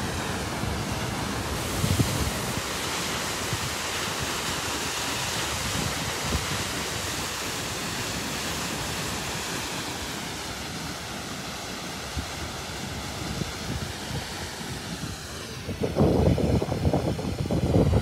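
Steady rushing roar of a waterfall plunging off a sea cliff into the sea. About two seconds before the end, gusts of wind buffet the microphone with low rumbling bursts.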